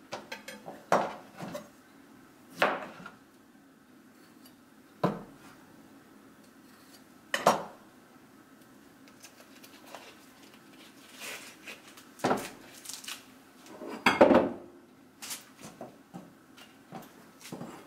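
Kitchen knife and sucuk sausage knocking on a cutting board while the sausage casing is peeled off by hand: about six sharp, separate knocks and clacks, with soft handling noise between them.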